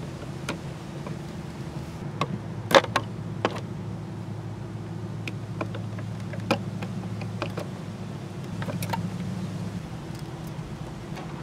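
Scattered small clicks and taps as wires are worked loose from the terminal screws of a mechanical irrigation timer, the loudest nearly three seconds in. Under them runs a steady low machine hum, part of which stops near the end.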